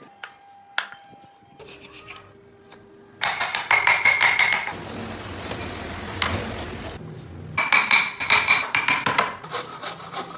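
Hand tools working wood: two bursts of rapid, even strokes, with a rough scraping stretch between them and a few faint clicks and short tones before.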